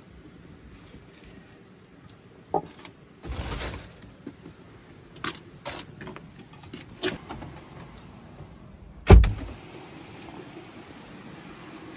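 Rustling and a few light knocks as things are handled in a storage shed, then a door bangs shut with a heavy thump about nine seconds in.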